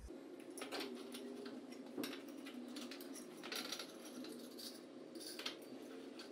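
Faint, scattered light clicks and scrapes from handling white metal desk legs while a desk is put together, with one sharper tick about two seconds in.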